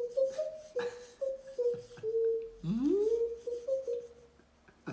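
A man making a vocal sound effect with his mouth: a sustained tone that steps between a few close pitches and swoops up from low about two and a half seconds in, punctuated by sharp mouth clicks.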